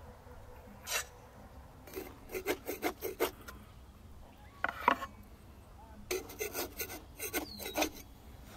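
Short rasping scrapes of baked buns being pried off the inside clay wall of a tandoor. They come in groups of quick strokes, the loudest about five seconds in.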